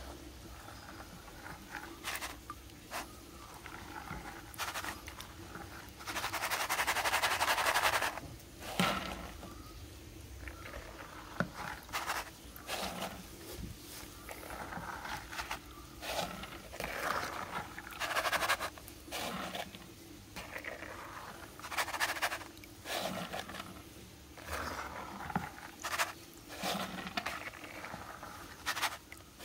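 Water splashing and sloshing in a plastic basin as a plastic tea strainer is dragged through cloves soaking in it, in irregular short bursts, with a longer, louder splash lasting about two seconds some six seconds in.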